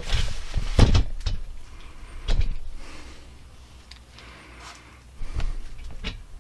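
About half a dozen dull knocks and thumps at irregular intervals, the loudest about a second in: someone moving about and handling things among cluttered workshop shelves.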